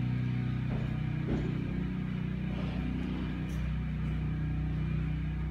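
Propane tank-top heaters burning with a steady low rumble, with a few faint knocks.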